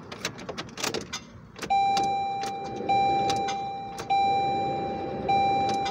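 Clicks and rattles of a car key being pulled from the ignition and turned around, then the car's warning chime dinging from a little under two seconds in: one steady tone that restarts about every 1.2 seconds.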